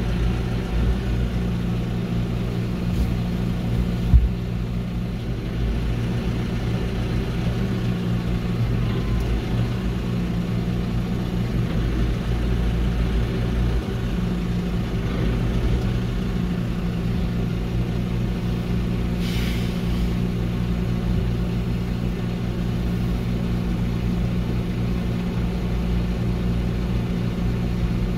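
Telehandler's diesel engine running steadily, heard from inside the cab. A single sharp knock comes about four seconds in, and a short hiss about two-thirds of the way through.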